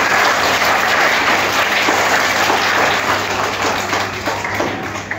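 An audience of schoolchildren applauding: dense, steady clapping that dies down a little toward the end.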